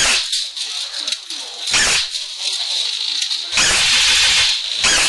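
Wind buffeting the microphone in gusts: low rumbling surges at the start, just before two seconds in, for about a second from three and a half seconds, and again near the end, over a steady high hiss.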